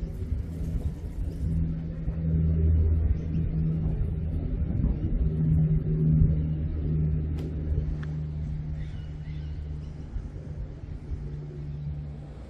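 An engine running steadily with a low drone that swells twice, then eases off.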